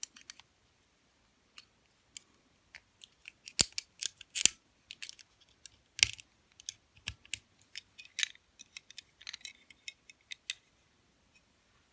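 A pick working the levers inside an Eagle four-lever padlock: irregular small metallic clicks and scrapes, with a few sharper, louder clicks around the middle.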